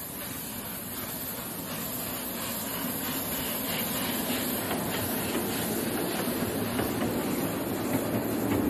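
Miniature live-steam replica of a GWR King Class locomotive running on its track, hissing steam with faint exhaust chuffs, growing steadily louder as it draws closer.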